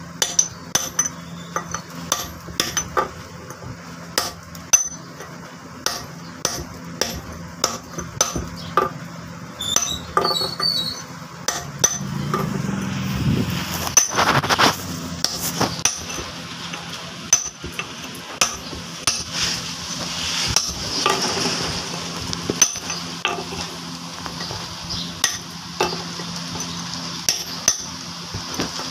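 Hammer and chisel tapping on a flour-mill millstone, dressing its grinding grooves: a steady run of sharp stone-chipping taps, about one to two a second. A louder patch of rougher noise sits in the middle.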